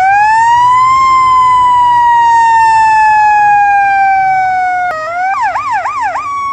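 Emergency vehicle siren, loud: a wail that climbs to its peak about a second in and then slowly falls, switching near the end to a fast yelp of about four rises and falls in a second before going back to a slowly falling tone.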